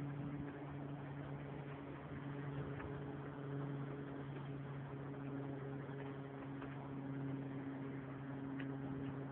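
Small boat's engine running at a steady speed, an even low hum, over the rush of water and wind as the boat moves along.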